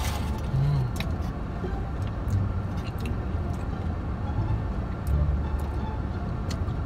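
Steady low rumble of a car running, heard from inside the cabin, with scattered small clicks from chewing and the crinkling foil wrapper of a shawarma.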